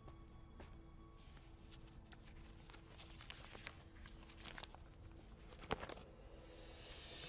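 Faint rustling and light clicks of a cardboard box being handled and its lid lifted open, with one sharper click about two-thirds of the way through.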